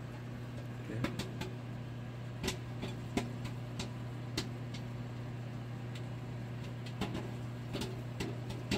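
Microwave oven running with a steady hum while popcorn kernels inside pop sparsely, about ten scattered single pops as the popping begins.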